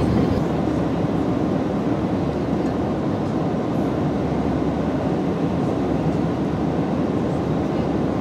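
Airbus A319 cabin noise in cruise flight: a deep, even rush of airflow and engine noise.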